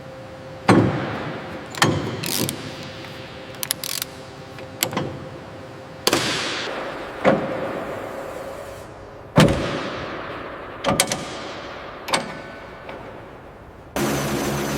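Heavy metal parts clanking and banging about a dozen times, each hit ringing briefly, as a part is fitted onto its mounts. About fourteen seconds in, a steady mechanical drone with a hum starts up.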